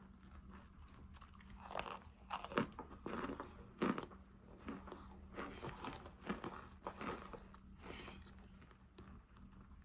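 Close-up chewing of hard chunks of cornstarch: irregular crisp crunches, loudest about two and a half and four seconds in.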